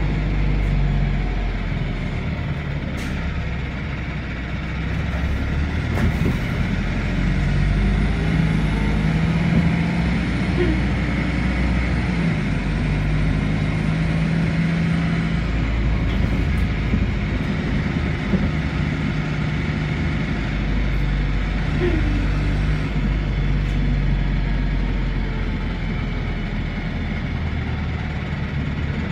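A motor vehicle running: a steady low engine drone with a hum whose pitch steps up and down every few seconds.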